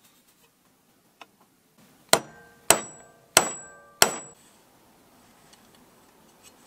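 Four hammer blows on a steel punch, roughly two-thirds of a second apart, peening a rivet into a circular saw's steel base-plate bracket. Each strike rings briefly like metal.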